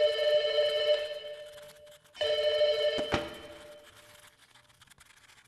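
Telephone bell ringing twice, each ring stopping and fading away. A short knock comes during the second ring.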